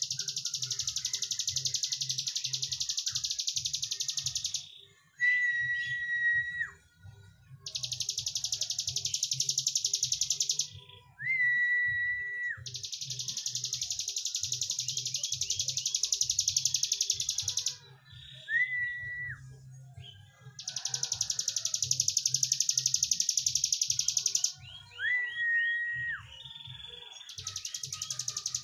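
Caged ciblek gunung (prinia) singing its long, rapid buzzing trill ('breen'), five runs of about three to five seconds each. Between the trills come single clear whistled notes, each held steady for about a second before dropping off.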